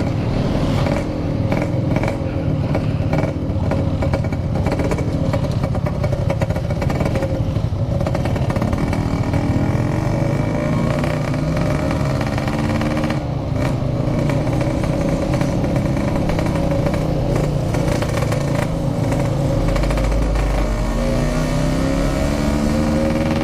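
Yamaha RX-King 135cc single-cylinder two-stroke engine running under way, with an irregular crackle, still cold and coughing, as the rider says. Its pitch rises as it accelerates about halfway through and again near the end.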